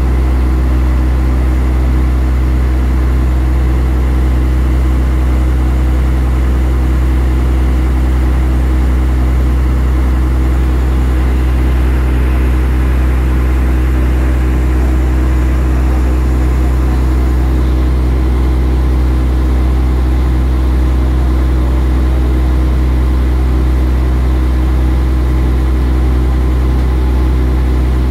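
A ferry's engine running with a steady, unbroken low drone and even hum.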